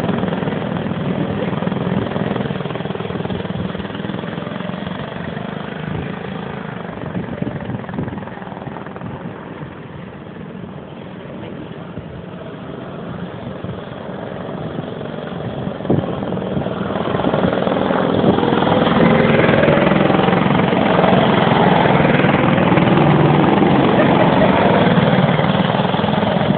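Go-kart engines running as several karts lap the track. The sound dips in the middle, then grows louder about two-thirds of the way in and stays loud as a kart comes close.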